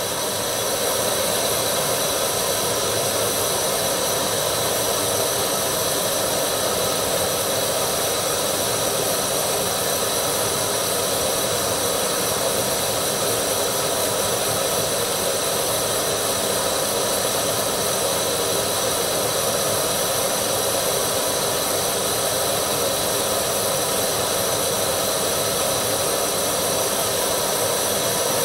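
Canister gas camp stove burner running full with a steady hiss under an aluminium mess-kit pot of water that is heating toward the boil but not yet boiling.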